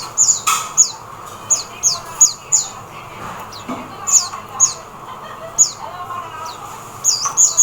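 Oriental white-eye calling: a string of short, very high chirps, each sliding down in pitch, often in quick runs of two or three.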